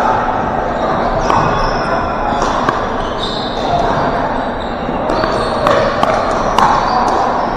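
Pickleball paddles hitting a plastic ball during a rally: several sharp pocks at irregular intervals, ringing in a large echoing gym over a steady din of indistinct chatter.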